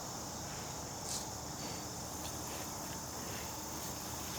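Steady high-pitched insect chorus of crickets or cicadas droning in the field.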